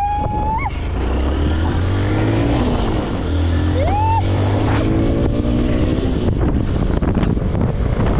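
Motorbike engine pulling away and climbing in pitch as it picks up speed, more than once, with wind rushing over the microphone.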